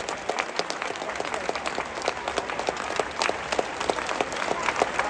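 Stadium applause: many hands clapping, with sharp single claps standing out close by.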